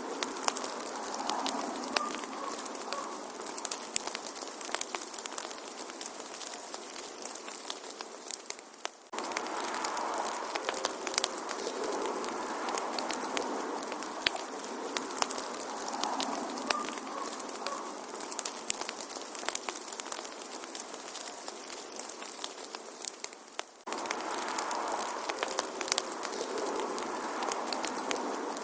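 Wood fire crackling in a fireplace, with frequent sharp pops and snaps over a steady hiss. The level briefly dips about nine seconds in and again about 24 seconds in.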